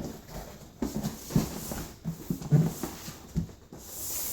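A cardboard gun box being opened and handled: a few irregular dull knocks, then a sliding, scraping hiss near the end as the lid or packing comes away.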